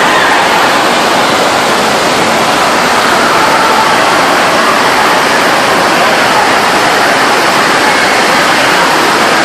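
Steady, loud rush of water on a water-park body-boarding ride, an unbroken roar with no pauses.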